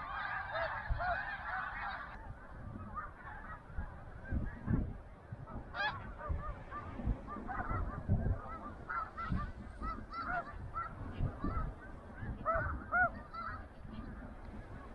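A flock of snow geese calling overhead: many short overlapping yelping honks, densest in the first two seconds, then thinning to scattered calls, over a low rumble.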